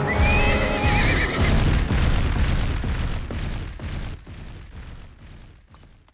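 Cartoon sound effect: a horse-like whinny, a wavering high call that falls slightly, over heavy rumbling, then a fast run of thudding hoof-like beats that fades away.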